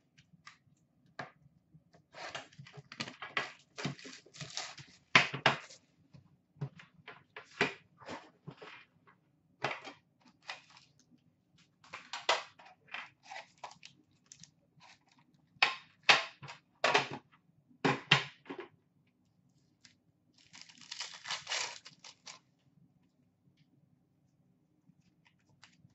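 A 2016-17 Upper Deck Series 1 hockey card tin being opened and its foil card packs handled: scattered clicks and knocks of the metal tin and lid, and crinkling of pack wrappers. A longer stretch of crinkling comes near the end, as a pack is worked open.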